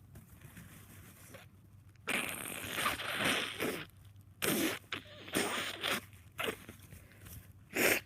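A person with a head cold blowing a stuffy, snotty nose: a long wet blow about two seconds in, then several shorter blows, the last near the end.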